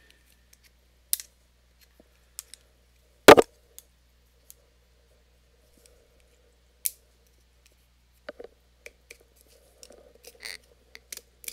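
Scissors snipping and working at the plastic seal on a hot sauce bottle's neck: a scattered series of sharp clicks, the loudest about three seconds in.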